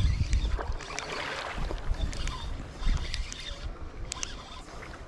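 Water splashing and small clicks from a spinning reel being cranked as a hooked trout is played in, over a low rumble. The splashing is strongest about a second in.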